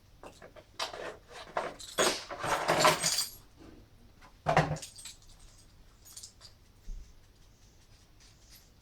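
Unpacking and handling noises: rustling packaging and small parts knocking and rattling in irregular bursts, with a denser rustle about two to three seconds in and a sharp louder knock about four and a half seconds in.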